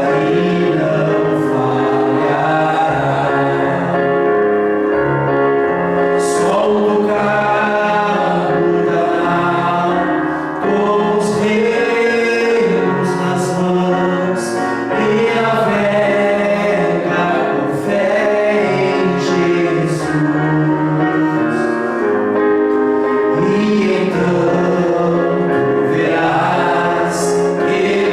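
Gospel hymn sung by voices in harmony, with instrumental accompaniment, at a steady level throughout.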